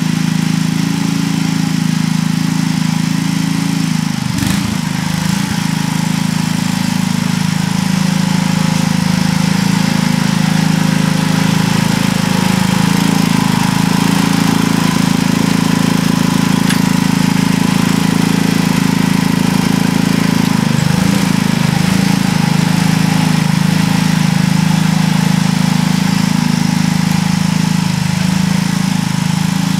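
Sears ST16 garden tractor's engine running steadily.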